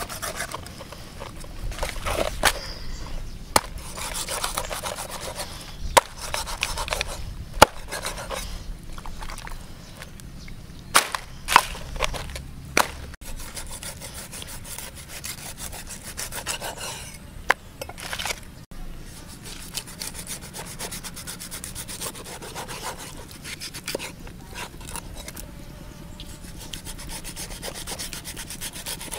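A cleaver scraping and cutting a stingray: a steady rasping scrape of the blade across skin and flesh, broken by several sharp knocks of the cleaver on a wooden chopping board.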